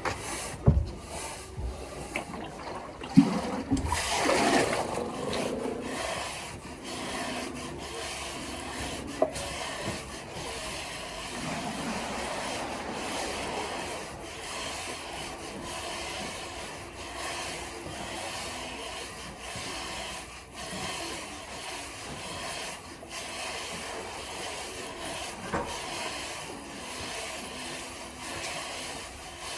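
Continuous scraping and rubbing from mucking out a horse stall, with a few sharp knocks in the first few seconds.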